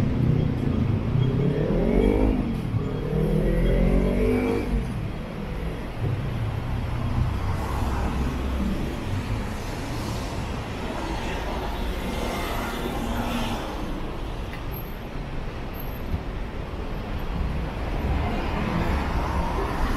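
Road traffic beside a city street. A motor vehicle's engine rises and falls in pitch as it accelerates past in the first few seconds, then the traffic settles into a steady rumble.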